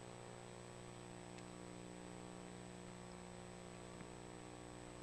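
Near silence: a faint, steady electrical hum with its overtones, unchanging throughout.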